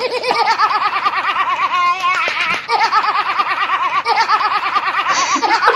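A woman's high-pitched laugh, fast and repeated without pause, that stops abruptly just before the end.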